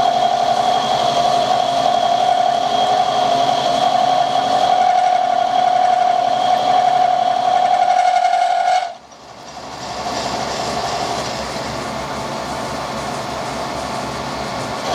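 Milling machine cutter taking a 1 mm cut across a steel spanner jaw, giving a steady high-pitched whine. The whine stops abruptly about nine seconds in, and quieter, even machine running noise follows.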